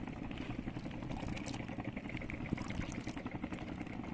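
Steady water splashing and trickling, over the low, even running of a small boat's motor.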